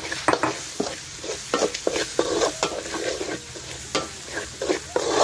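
A metal spoon scrapes and stirs chopped aromatics and chili frying in oil in a black wok. The frying oil sizzles steadily, with irregular scraping strokes about two or three times a second.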